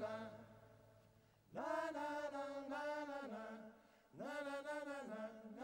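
Male vocal group singing held chords in close harmony, a cappella, in phrases about two seconds long. Each phrase slides up into its chord, with short pauses between them.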